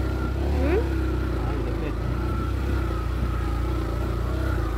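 Motorcycle engine running steadily at low speed, heard from the rider's seat, with a brief rise in pitch about half a second in.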